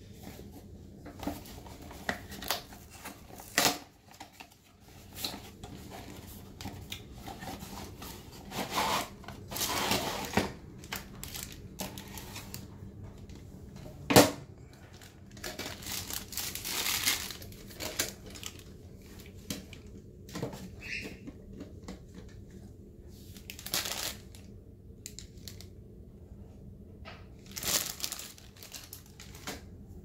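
Packaging being handled while a new toilet fill valve is unpacked: crinkling and rustling of a plastic parts bag and paper, with scattered clicks and knocks of plastic parts. One sharp knock about halfway through is the loudest sound.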